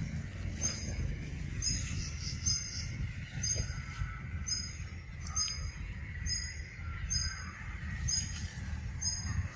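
Forest ambience: a short, high chirp repeating a little more than once a second over a steady low rumble.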